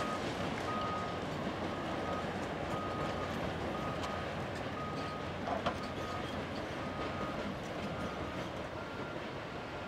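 Steady rumble of heavy machinery working rock: Volvo crawler excavators' diesel engines with a rock crusher being fed. A short high beep repeats about once a second throughout, and a single sharp knock sounds about five and a half seconds in.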